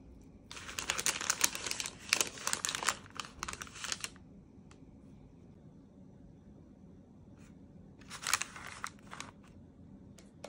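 Thin white paper cookie bags crinkling as they are handled and cookies are slid out, in a burst of about three and a half seconds starting half a second in, then a shorter burst about eight seconds in.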